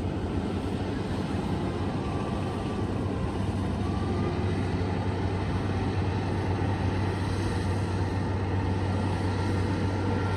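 Rice combine harvester's diesel engine running steadily under load, a constant low hum with machinery noise over it.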